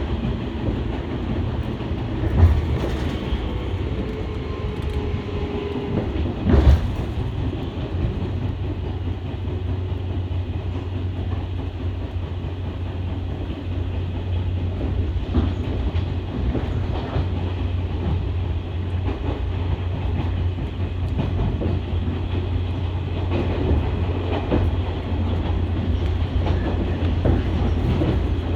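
Shinano Railway 115 series electric train running, heard from inside the carriage: a steady low rumble with the clickety-clack of wheels over rail joints. Two sharp knocks come at about two and a half and six and a half seconds in, and the clatter grows busier near the end.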